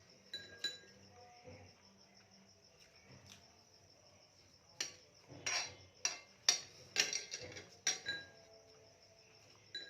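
Crickets chirring steadily in the background, with cutlery clinking against a plate: two ringing clinks near the start, then a louder run of clatter and scraping between about five and eight seconds in.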